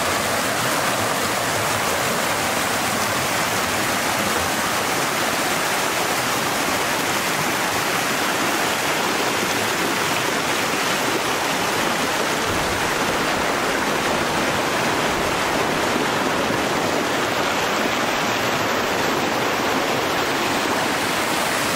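Fast mountain creek rushing over rocks: a steady, unbroken whitewater rush.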